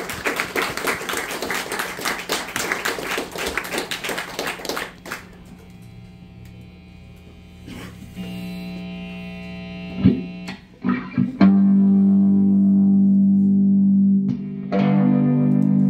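Audience clapping fades out over the first few seconds. An electric guitar through effects then plays a few soft notes and plucks, and about two-thirds of the way in a loud held chord rings out, breaking off briefly near the end before sounding again.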